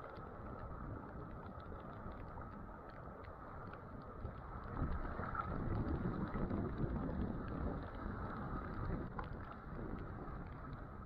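Rough sea surf washing and breaking against a rocky shore, with wind buffeting the microphone; the wave wash swells louder about five seconds in and stays up for a few seconds.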